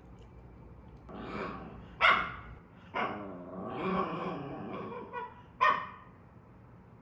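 Pet dog barking, about three sharp barks, with softer, drawn-out vocalizing between them.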